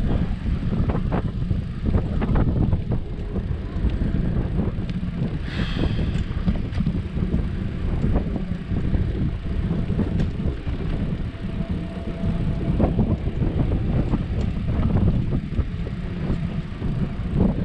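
Wind buffeting the microphone of a camera riding along behind a child's bicycle: a steady low rumble, mixed with tyre noise on the concrete sidewalk and scattered small knocks.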